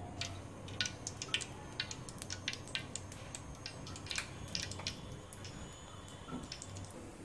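Irregular small crackles and pops from a hot black iron karahi heating on a gas burner, thickest in the first five seconds and thinning out toward the end, over a faint low hum.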